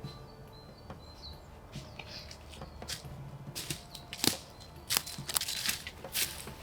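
Dry sticks and twigs cracking and knocking as wood is handled to build a campfire, a run of sharp snaps in the second half, loudest a little past the middle. Faint high bird chirps in the first second or so.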